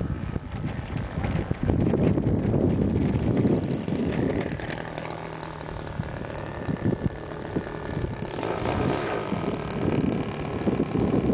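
Wind buffeting the microphone, over the faint steady drone of a Nexstar RC trainer airplane's engine idling as it taxis on the runway.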